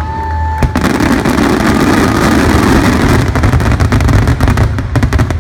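Fireworks barrage, loud: from about a second in, a dense rush of launches and bursts, breaking up in the second half into many rapid sharp cracks.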